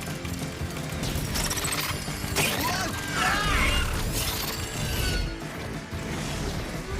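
Animated action-series soundtrack: score music layered with sound effects, including a sudden hit about two and a half seconds in followed by a flurry of sliding tones.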